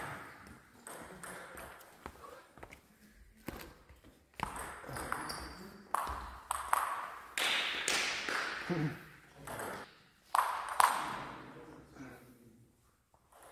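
Table tennis rally: the ball clicking sharply off the table and the players' bats in quick back-and-forth hits, with short pauses between points.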